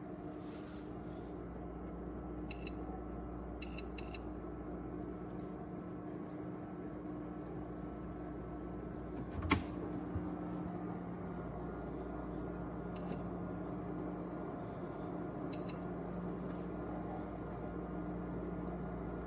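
Steady electrical machine hum with a low tone, broken by a few short high-pitched beeps, in pairs about two and a half seconds in and again about thirteen and fifteen and a half seconds in, and a single sharp click about nine and a half seconds in.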